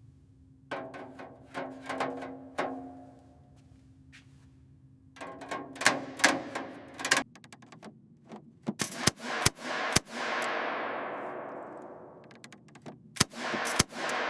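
Metal workshop clanks: a run of sharp knocks on metal, some with a short ringing tone, getting denser and louder about a third of the way in. About two-thirds of the way in a louder hit sets off a hiss that fades over a couple of seconds.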